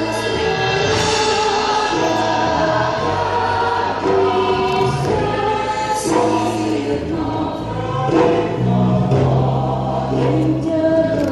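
Choral music: a group of voices singing together in long held notes, with a low sustained tone underneath in the second half.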